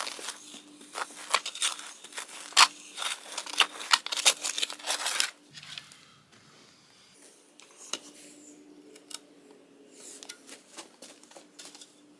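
Steel digging bar jabbing and scraping into sand, gravel and rock: a rapid run of sharp crunching strikes for about five seconds, then only a few faint scrapes.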